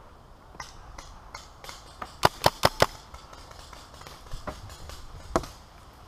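Magazine-fed paintball markers firing: a quick string of four loud shots about two and a half seconds in, with fainter single shots scattered before and after.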